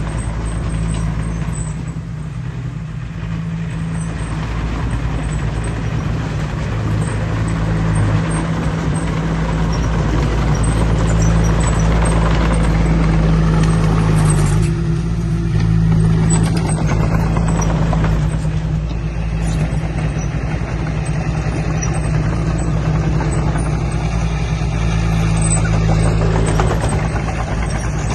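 Heavy diesel engine of earthmoving machinery running steadily, a continuous deep engine drone.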